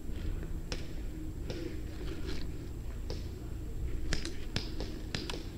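Scattered short, sharp clicks and snaps, several close together about four seconds in, over a steady low rumble.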